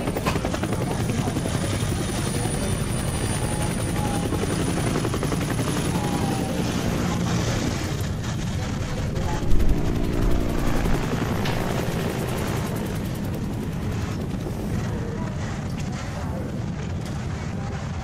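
Street traffic: motor vehicles driving past close by, with a steady rapid engine putter and a brief louder knock about halfway through.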